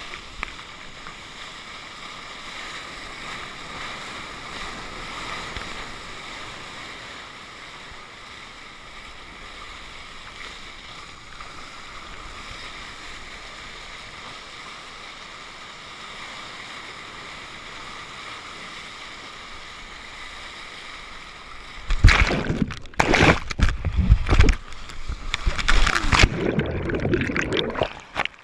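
Muffled, steady rush of seawater heard through an action camera's waterproof housing as a surfer paddles a surfboard through whitewater. About three-quarters of the way through, a run of loud, irregular splashes as water breaks over the board and hits the housing.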